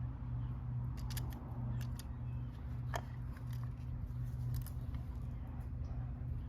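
A few short, sharp clicks of small metal parts being handled, over a steady low hum.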